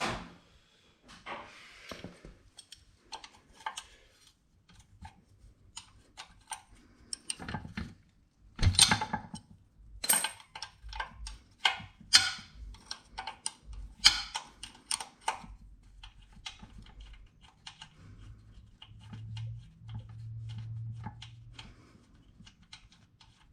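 Wrench working on the bolts that hold a pressure washer pump: irregular runs of quick metal clicks and clinks, loudest in bursts about a third and halfway through.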